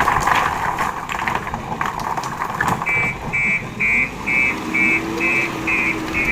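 JCB 3DX backhoe loader working: rattling and knocking for the first three seconds, then a reversing alarm starts beeping about twice a second while the diesel engine revs up and holds.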